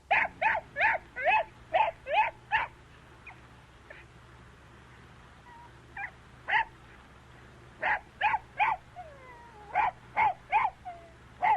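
A dog yipping: short, high calls in quick runs of several, with a gap of scattered single yips in the middle.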